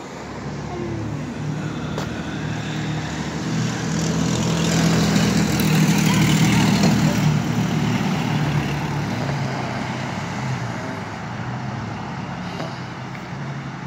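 A motor vehicle driving past on the street. Its engine note and tyre noise swell to a peak about six to seven seconds in, then fade away.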